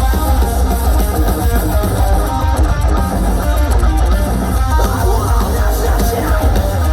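Metalcore band playing live, an instrumental passage: electric guitars playing a fast riff over bass guitar and drums, with a heavy, loud low end and no vocals.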